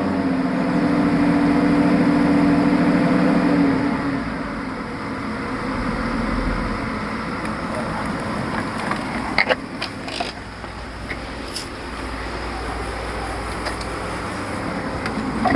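Car engine running with a newly fitted clutch fan drawing air through the radiator. A steady humming tone fades about four seconds in, leaving steady running with a few light clicks near the middle. There is no rattle from the fan.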